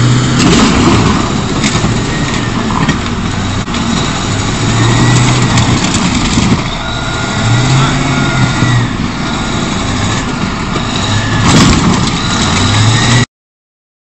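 Large wheel loader's diesel engine running hard and revving up and down repeatedly as its raised bucket is dropped onto a minivan, with sharp crunching impacts as the car is crushed. The sound cuts off suddenly near the end.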